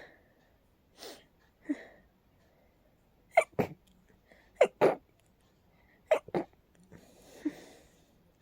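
A person in a rapid sneezing fit set off by allergies: short, sharp sneezes coming in quick pairs, three pairs in the loudest stretch, after two softer bursts, with a longer breathy sound near the end.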